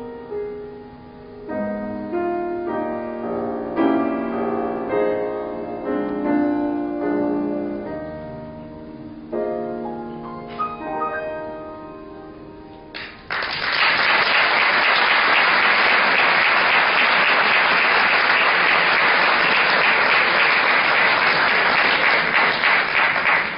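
Grand piano playing a slow, gentle passage that closes on its last chords, then about halfway through the audience starts applauding, loud and steady.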